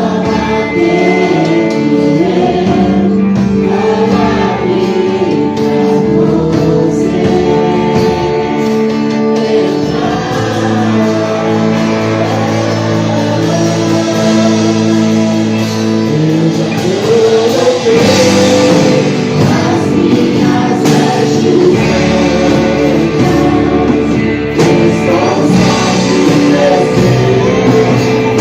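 Christian gospel worship song: voices singing over a full band.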